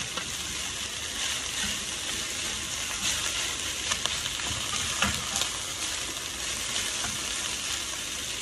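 Fried rice with fish and vegetables sizzling in a deep metal frying pan while a wooden spoon stirs it, with a few sharp clicks where the spoon knocks against the pan.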